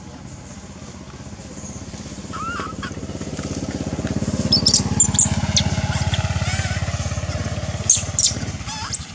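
A motor engine passes by, growing louder from about two seconds in and fading near the end. Long-tailed macaques give short high squeaks over it, the loudest about eight seconds in.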